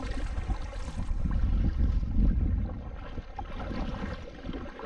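Wind buffeting the microphone with a low rumble, strongest in the middle, over the splash of a kayak paddle working through lake water.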